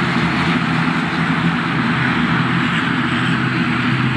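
Aircraft engines running loud and steady, an even roar with a low steady hum beneath it.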